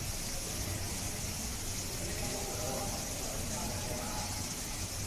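Indistinct, distant voices of people talking over a steady background hiss and low hum.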